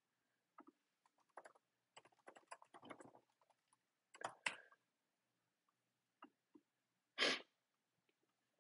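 Faint computer keyboard typing: scattered soft key clicks in two short runs, with one louder, brief noise near the end.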